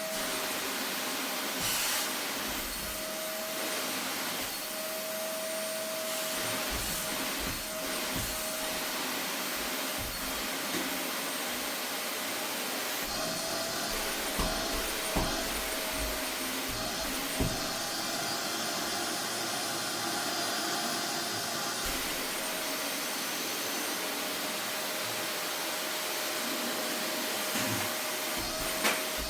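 Vacuum cleaner running steadily with a constant motor whine as the nozzle is worked over upholstery, with a few light knocks partway through and near the end.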